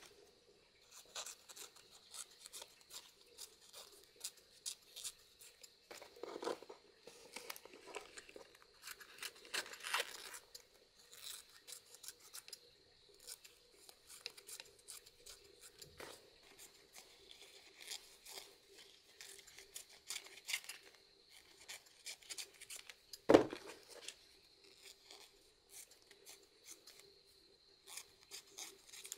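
Kitchen scissors snipping through banana leaf, trimming it around soft sticky-rice cakes: many short, quick snips with leaf rustling between them. One louder knock comes about two-thirds of the way through.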